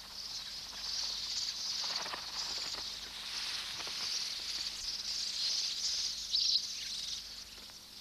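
Dense, continuous high-pitched chattering of a red-billed quelea breeding colony. A few louder individual chirps stand out about two-thirds of the way in.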